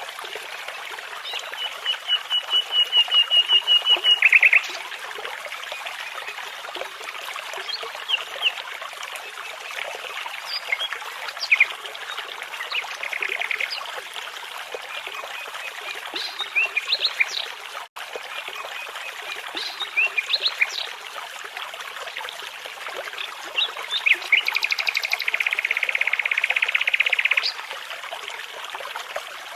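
Nightingales and other songbirds singing over a babbling brook's steady water sound. A fast run of rapidly repeated notes near the start and another near the end, with scattered short chirps between, and a momentary dropout about midway.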